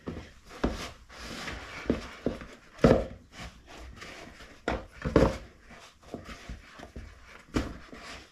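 Bread dough being kneaded by hand in a mixing bowl: irregular dull thumps as the dough is pushed and folded against the bowl, loudest about three and five seconds in, with soft rubbing and squishing between.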